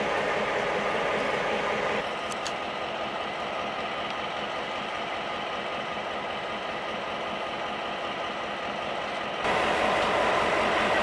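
Taiwan Railway R100-class diesel-electric locomotive idling steadily at a station platform.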